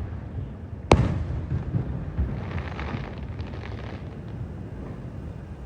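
Aerial firework shell bursting with one sharp bang about a second in, its boom rumbling and echoing away, with a spell of faint crackling from the burst a second or so later.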